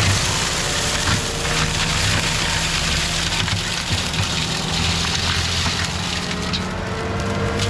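CAT 259D3 skid steer's diesel engine running hard while its forestry mulcher head spins and grinds through brush and wood, a steady loud din.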